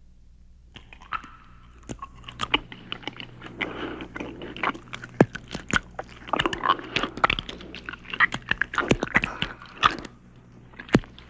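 Chewing and crunching, with many sharp cracks and snaps in quick irregular succession, starting about a second in.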